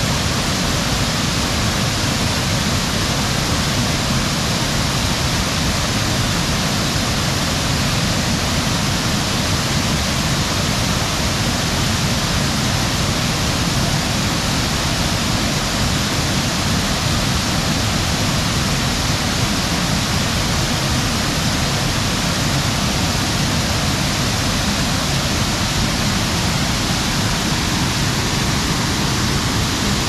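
Waterfall close by: a steady, loud rush of falling water.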